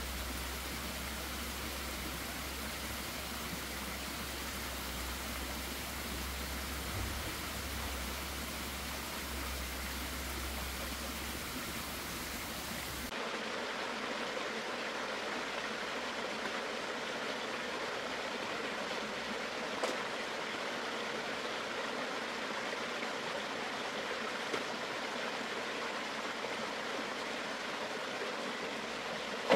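Steady rush of flowing water. About halfway through the sound changes abruptly: a low rumble drops away and the rushing becomes a little brighter.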